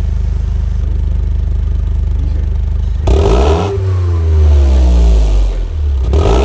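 Toyota GR Yaris three-cylinder engine through an aftermarket titanium exhaust, idling steadily, then blipped twice: a sharp rev about three seconds in that falls back to idle, and another near the end.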